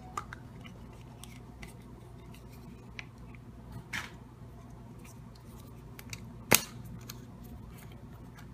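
Small clicks and taps of a Kinder Surprise chocolate egg and its plastic toy capsule being handled, with one sharp loud snap about six and a half seconds in as the yellow capsule is pried open.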